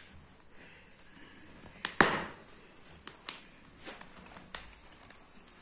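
A few scattered sharp clicks and knocks, the loudest about two seconds in, over a quiet background.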